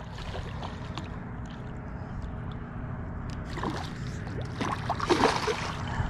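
A hooked northern pike splashing at the water's surface as it is reeled in, with several splashes about four to five seconds in, over a steady low rumble.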